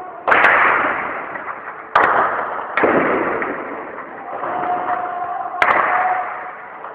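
Four gunshots, each cracking sharply and then echoing for a second or two, the second and third close together.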